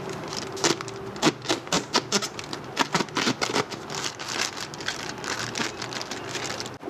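A quick, irregular run of sharp clicks and taps, busiest in the first few seconds and thinning out after, over a low steady hum.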